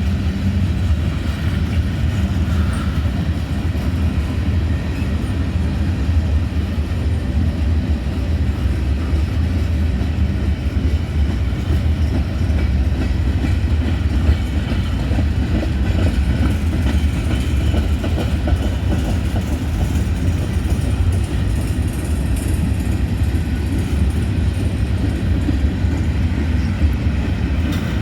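Freight train cars rolling past close by: a steady, loud rumble of steel wheels on the rails with rail clatter, unbroken throughout.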